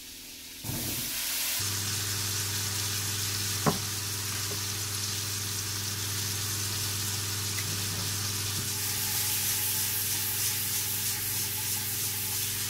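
Whole button mushrooms sizzling as they fry in butter in a frying pan, the sizzle starting about half a second in as they go into the hot pan. A steady low hum runs underneath from about a second and a half in, and there is one sharp knock near four seconds.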